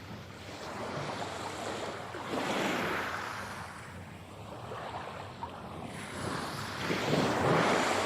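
Sea waves breaking and washing on a shore. Two waves swell in, one about two and a half seconds in and a louder one near the end, with the surf easing between them.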